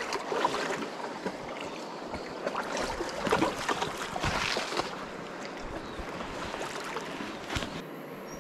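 River water splashing and gurgling in the shallows, with louder splashes about three to four and a half seconds in.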